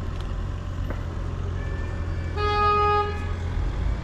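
A vehicle horn honks once, a short, steady single-pitched toot about two and a half seconds in, over a constant low rumble of street background.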